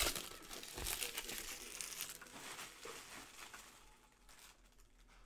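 Trading-card pack wrapper crinkling and tearing as a hobby pack is ripped open, a dense crackle that thins out and dies away over the last couple of seconds.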